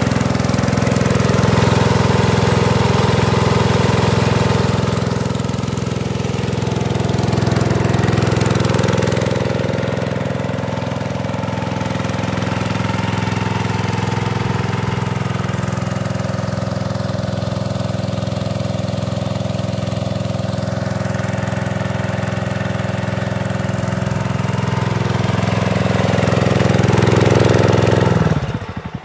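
Kubota GS280 single-cylinder petrol engine running at full throttle, driving a high-pressure water pump, with the hiss of the water jet. Near the end the throttle is pulled back and the engine drops suddenly to a slow, pulsing idle.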